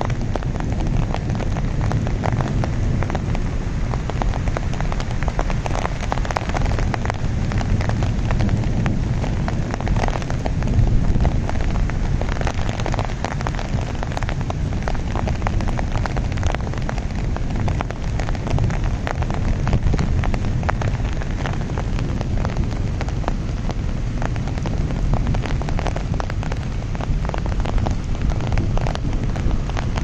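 Steady heavy rain, with countless separate drop taps over a continuous low rumble.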